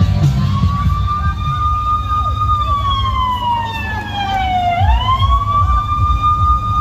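A wailing siren in slow cycles. Its pitch climbs and holds, slides down over about two seconds, then sweeps quickly back up about two-thirds of the way through and holds again, over a steady low rumble.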